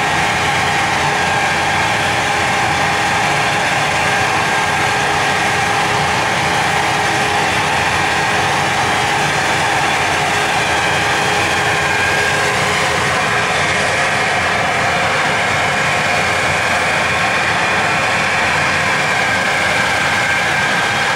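A machine running steadily and loudly: a dense, even noise with several fixed tones held through it, unchanging throughout.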